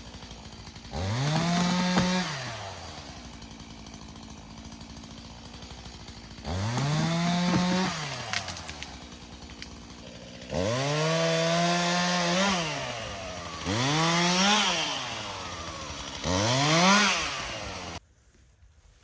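Two-stroke chainsaw idling and revving up five times, each time climbing quickly to full speed, holding about a second, then dropping back to idle. It cuts off abruptly near the end.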